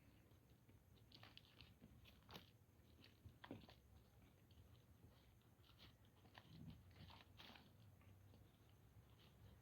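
Faint, scattered crunching and light clicks of grated bar-soap flakes being handled and pushed into a small bottle.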